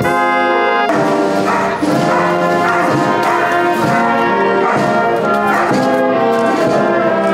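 Brass band of trumpets, tubas, French horn, clarinet and flute playing held chords that change every second or so, with an abrupt change in the music about a second in.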